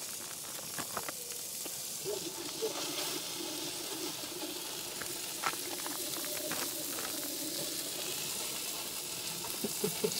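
Burger patty and sliced onions frying on a propane camp-stove griddle: a steady sizzle with scattered small pops and crackles.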